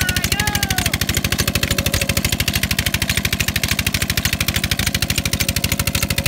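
Diesel 'Peter' engine running steadily with an even, fast chugging beat of about ten strokes a second, driving a belt-driven tube-well pump that is lifting water for irrigation.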